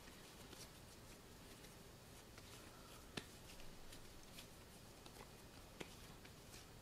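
Near silence: faint room tone with a few soft taps and rustles from hands shaping pizza dough into balls, the clearest tap about three seconds in.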